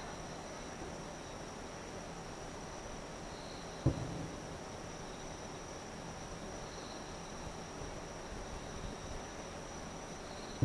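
A distant aerial firework shell bursting: one dull boom about four seconds in, with a second starting right at the end. Under it, crickets trill steadily in a high, thin tone with soft chirps every few seconds.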